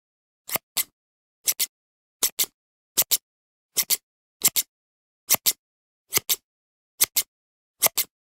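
Scissors snipping in a steady rhythm: ten crisp double snips, about one every 0.8 seconds, with dead silence between them.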